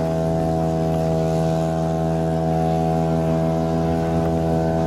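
Radio-control model aircraft engine running steadily at a constant low speed, an even idle with no change in pitch.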